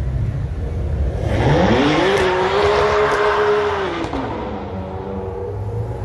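A Ferrari engine revs up hard about a second in, holds high revs for about two seconds, then drops back toward idle.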